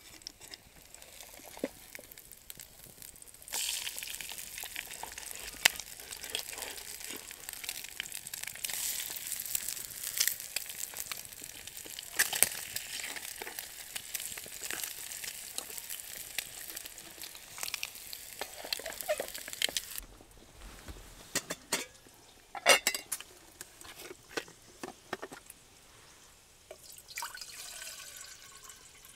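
Bacon and eggs sizzling in a metal pan over a small wood stove, with a fork stirring and scraping the pan. The sizzle grows louder a few seconds in and stops abruptly about two-thirds of the way through. A few sharp metal clinks follow, and near the end water is poured from a bottle into a metal kettle.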